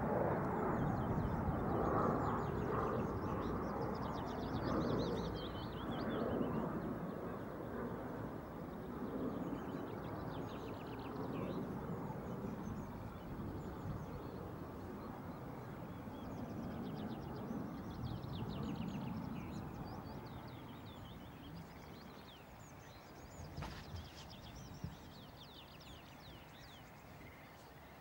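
Drone of a passing aircraft that fades slowly into the distance, while small songbirds sing quick runs of repeated high notes. Two short knocks near the end.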